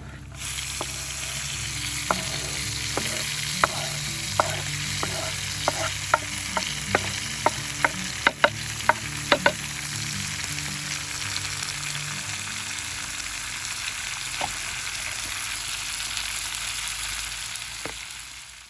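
Food sizzling in a hot pan, a steady hiss with sharp pops and crackles scattered through the middle stretch.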